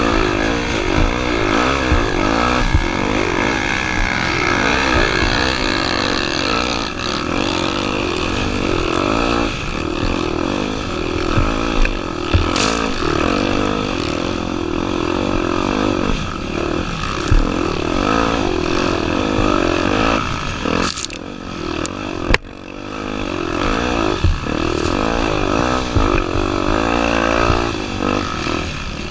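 Honda Tornado 250's single-cylinder four-stroke engine revving up and down continually as the dirt bike is ridden off-road, with a few sharp knocks; the engine note drops away briefly a little over twenty seconds in.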